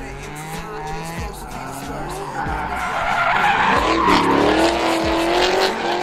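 Green Mazda drift car sliding sideways, its engine revving hard and its tyres squealing. It is loudest about four seconds in, as it sweeps past close by.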